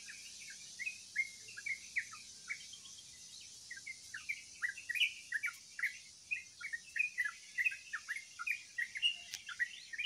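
A songbird singing vigorously high in a tree: a fast, unbroken string of short chirps and whistled notes that grows denser from about four seconds in, over a faint steady high hiss.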